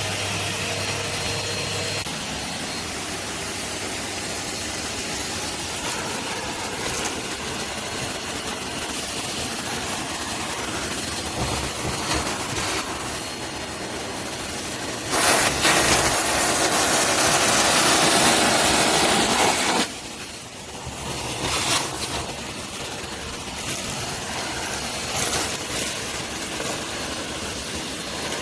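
Henry canister vacuum cleaner running steadily while hoovering. About halfway through, a much louder hiss comes in for about five seconds and then cuts off suddenly.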